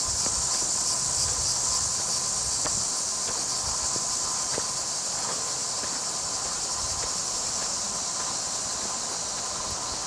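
Cicadas buzzing in a steady, high-pitched chorus.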